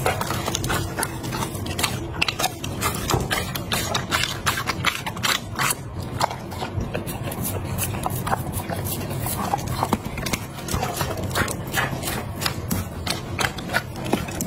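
Chocolate Labrador eating from a glass bowl of raw meat and broccoli: close-up chewing, smacking and licking, with dense, irregular sharp clicks several times a second.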